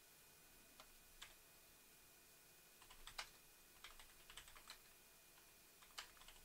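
Faint computer keyboard typing a short console command: two single keystrokes, then quick runs of key clicks about three and four seconds in, and a few more near the end.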